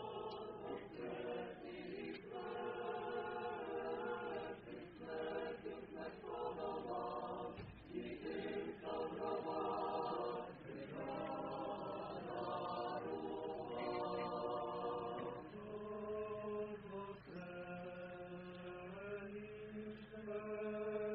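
A choir chanting slowly in several voices, in phrases of two or three seconds with short breaks between them.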